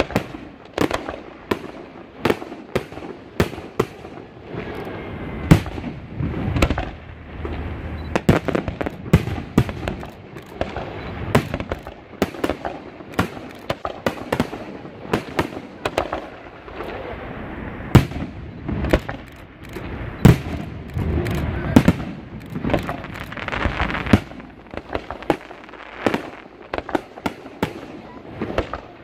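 Fireworks display: aerial shells bursting one after another, dozens of sharp bangs at irregular intervals with a continuous rumble between them.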